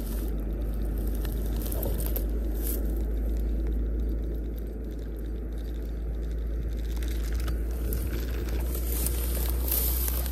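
Zebco spincast fishing reel being cranked to retrieve line, with handling noise over a steady low rumble. Near the end come crunching footsteps through dry grass.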